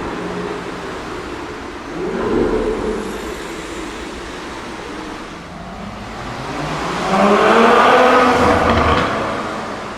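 Supercar engines accelerating past, with a short swell about two seconds in and a louder car passing hard from about seven to nine seconds in, its engine note rising and then dying away.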